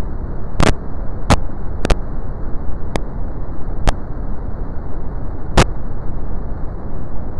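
Steady brown noise: an even, deep rushing hiss, heaviest in the lows with no highs. About six sharp clicks break through it at uneven intervals, the loudest a little past halfway.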